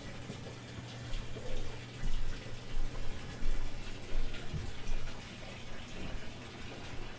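Water running steadily over a low hum, with scattered short knocks.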